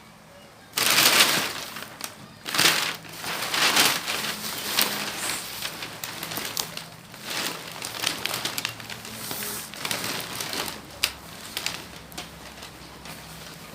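Packaging being handled: plastic wrap and packing material crinkling and crushing in irregular bursts, loudest in the first few seconds.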